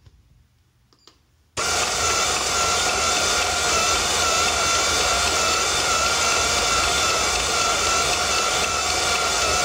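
Motors of a Bright Tech Developments bus destination power roller display winding the numbers blind: a faint click about a second in, then the motors start suddenly about a second and a half in and run with a steady whir.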